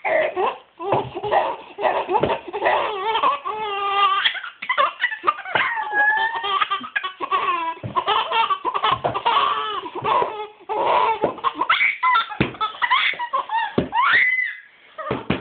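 Infant laughing hard, in long runs of rapid belly laughs, with a couple of short pauses.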